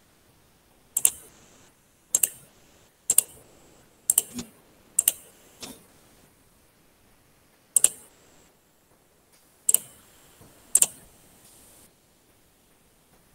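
Sharp clicks of key or button presses at a computer, about nine, mostly a second or so apart with a longer pause in the middle.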